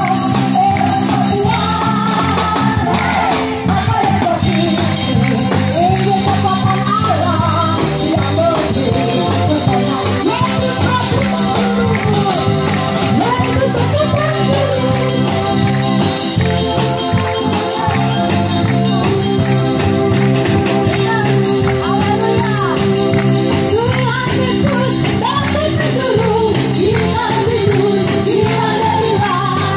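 Christian worship music from a band played loud over a PA system, with singing and a steady beat.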